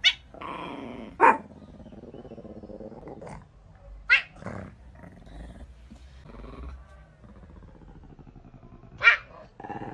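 A tuxedo cat growling low, broken by four sudden, sharp, loud cries: one at the start, two more in the first half, and one near the end.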